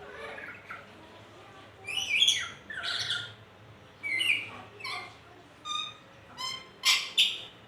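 Pet nuri parrot (a lory) calling in a string of short squawks and whistled notes, about eight separate calls, the loudest pair near the end.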